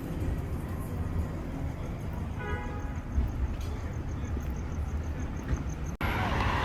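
Steady low rumble of motor vehicle traffic, with a brief pitched toot about two and a half seconds in. Near the end the sound drops out for an instant and comes back louder and noisier.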